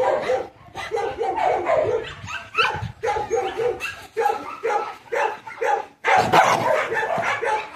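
Dog barking and yipping in quick repeated bouts, several a second, with a brief break about six seconds in.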